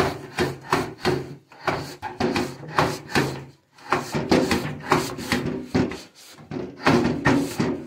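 A cloth scrubbing back and forth over the slats of a painted metal louvered window shutter, in quick rubbing strokes of about three or four a second with a few short breaks.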